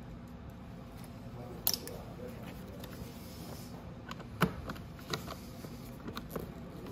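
Sparse sharp clicks and light knocks of hand tools and loose fasteners being handled, four or five of them irregularly spaced, over a low steady hum.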